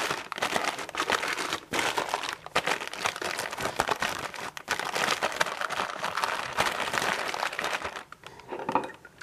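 Sheet of parchment paper crinkling and crackling as hands press and crumple it into a bamboo steamer basket to line it; the crinkling thins out near the end.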